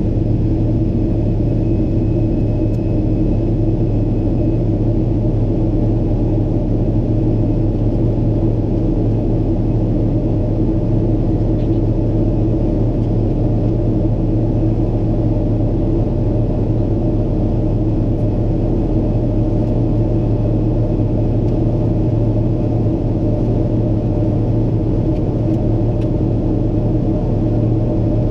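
Steady low rumble of a Boeing 777-300ER's GE90 engines, heard inside the cabin: a constant drone with an even hum under it and no change in pitch.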